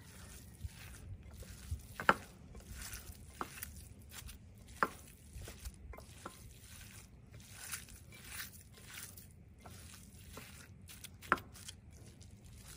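A hand kneading minced lamb mixed with chopped vegetables in a glass dish: soft, wet squishing, with a sharp click about two seconds in and another near the end.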